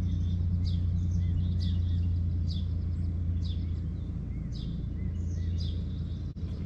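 Truck engine idling with a steady low hum. A bird chirps over it about once a second, each chirp a quick falling note.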